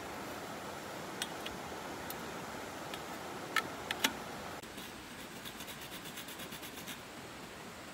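Pruning saw cutting a thin bamboo stem laid on a rock: a few sharp knocks and scrapes as the blade is set on the stem, then quick, even sawing strokes in the second half, over the steady rush of a shallow stream.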